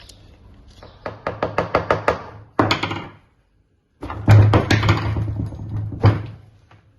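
A quick run of sharp knocks, about seven a second, ending in a heavier thump. The sound cuts to dead silence for most of a second, then another run of knocks ends in a second thump.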